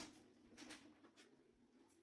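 Near silence, with a few faint short clicks.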